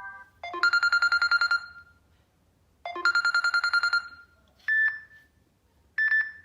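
Samsung Galaxy A6 stock ringtones: an electronic trilling ring sounds in two bursts of about a second and a half each. Two short single chime notes follow, each dying away quickly.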